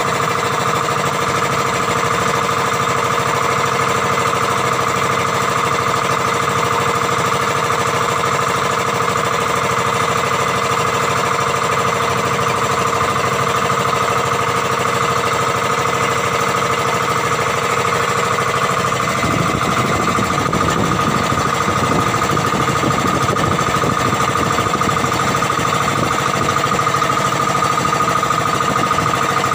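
Outrigger boat's engine running steadily under way. Its low rumble turns rougher about two-thirds of the way through while the higher note holds.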